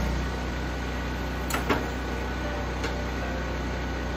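Arc welding on steel angle iron cuts off right at the start, leaving a steady machine hum. A few light metal clinks follow as the freshly welded frame is handled.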